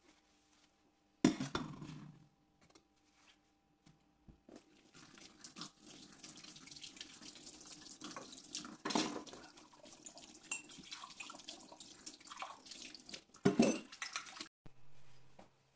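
Tap water running into a kitchen sink while porcelain teacups and glass mugs are rinsed by hand, with knocks and clinks of china against china. A sharp clink comes about a second in and two more louder knocks near the middle and the end.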